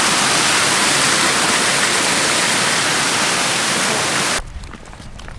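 Water pouring in thin streams over a concrete weir wall into the channel below: a steady, loud rush that cuts off suddenly about four seconds in, leaving only faint clicks.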